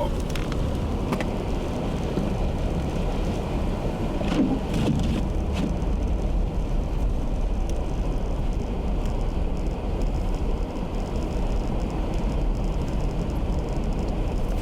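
Steady low rumble of a car driving, heard from inside the cabin: road and engine noise with a few faint clicks.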